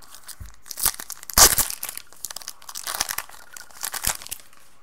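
Trading-card pack wrapper torn open and crumpled by hand: a run of irregular crinkling rips, loudest about a second and a half in.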